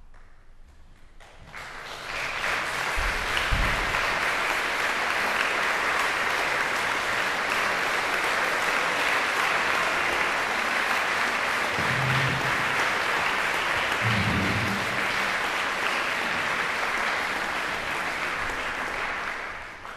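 Audience applause. It starts about a second and a half in, stays steady, and cuts off near the end.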